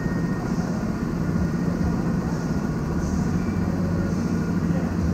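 Rental go-kart engines idling together in a line, a steady low hum with no revving.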